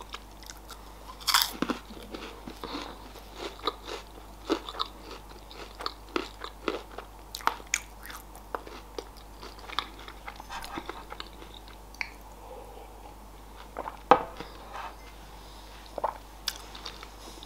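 Close-miked biting and chewing of a Raffaello coconut-almond candy, with irregular crisp crunches of its wafer shell and almond. The loudest crunches come about a second and a half in and again about fourteen seconds in.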